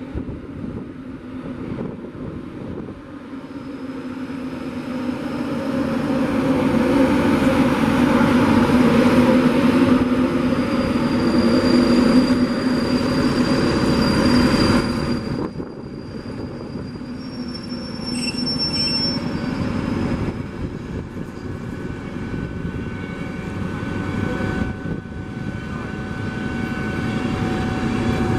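A train passing through the station: the rushing rail noise builds over several seconds, is loudest around the middle, then drops off sharply. Thin high squeals from the wheels on the rails sound near the middle.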